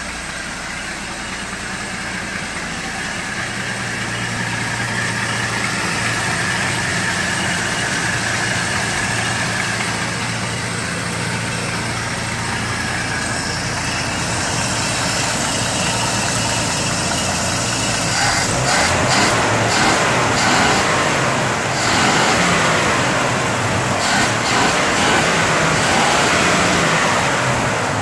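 Engine of a 1959 Chevrolet pickup running with its air cleaner off, alive after sitting for almost three years. It idles steadily at first, then from about 18 seconds in it runs louder and uneven, with several surges in speed.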